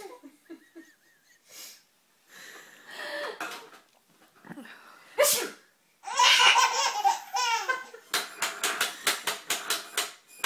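A baby laughing hard in response to a sneeze: a few giggles, a sudden sneeze about halfway, then a long belly laugh breaking into quick rapid bursts of laughter.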